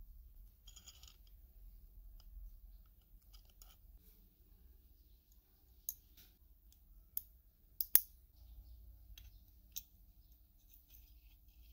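Tweezers and small metal fishing-reel parts clicking together while the reel is reassembled: soft handling sounds, then several sharp clicks in the second half, the loudest about eight seconds in.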